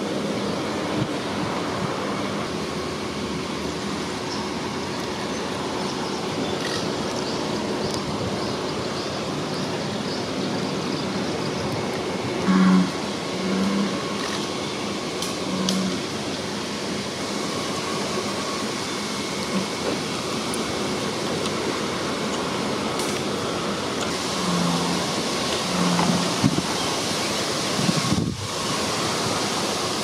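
Steady, even hiss of outdoor background noise, with a few short low sounds about halfway through and again near the end.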